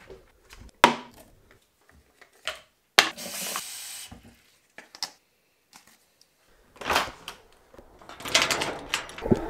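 Kitchen handling sounds: sharp clicks and clunks of a cupboard door and a door handle, with a tap running briefly into a drink bottle about three seconds in and a quick run of clicks and knocks near the end.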